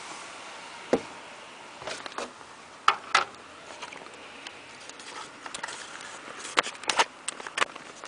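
Irregular sharp clicks and knocks from a plastic plug-in remote-control receiver and its cord being handled, clustered near the end, over a faint steady background hiss.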